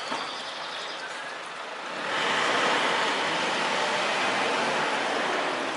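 Red coolant poured from a jug into the filler opening of a car's cooling system: a steady splashing pour, growing louder about two seconds in, as the system is refilled.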